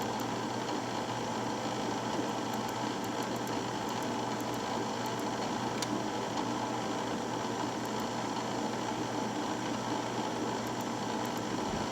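Drill press running steadily, its motor giving an even hum as it spins a chucked ignition rotor plate, with a few faint light ticks over it.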